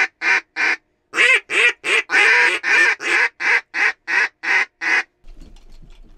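Mallard duck call blown in a long, even series of loud quacks, about four a second with a short break about a second in. The quacking stops about five seconds in.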